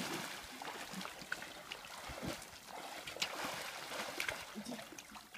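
Swimming-pool water sloshing and lapping, with small splashes and drips as swimmers move in the water.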